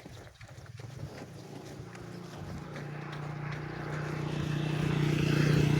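Running footsteps, then the steady hum of a motor vehicle's engine growing steadily louder as it approaches.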